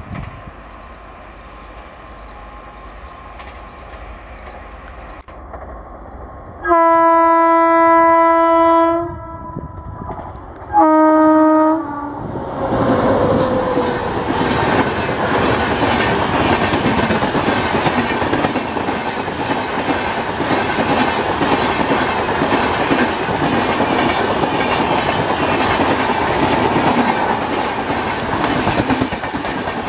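WAP-7 electric locomotive sounding its two-tone horn as it approaches: one long blast of about two seconds, then a shorter one. Then the express train passes close by, its coaches' wheels clattering steadily over the rails.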